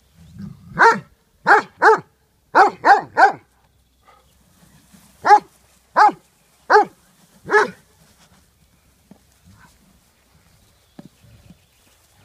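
Beauceron barking in play: ten loud barks, six quickly in the first three and a half seconds, then four more about a second apart. After that there are only faint knocks.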